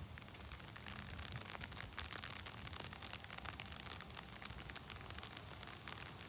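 Heavy rain falling, with many small sharp ticks of drops hitting close to the wet camera's microphone over a steady hiss.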